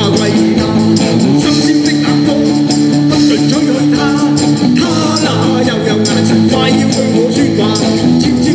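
Live band playing an upbeat pop-rock song: electric guitars through amplifiers over a steady beat, the chord changing every few seconds.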